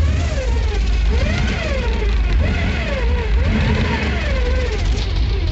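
Car engine running with a steady low rumble and a whine that rises and falls in pitch about once a second, in a vehicle whose transmission has gone out.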